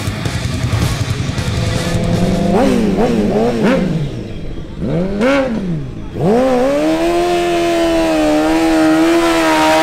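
Honda CBR1000RR inline-four sport-bike engine ticking over, then blipped in a few quick revs and one longer rise and fall. About six seconds in it climbs and is held steady at high revs for a burnout, the rear tyre spinning and smoking.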